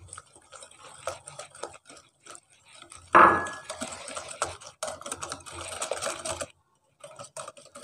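Hand wire whisk beating egg into creamed butter and sugar in a glass bowl: quick, irregular clicking and scraping of the wires against the glass, with one louder knock about three seconds in.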